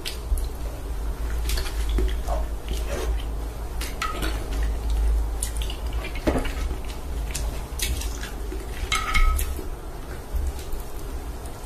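Metal chopsticks and a spoon clicking and scraping against a glass baking dish of noodle soup, with wet slurping and eating sounds of noodles and soft-boiled egg. Many short clicks; two clinks ring briefly, about four and nine seconds in, over a steady low hum.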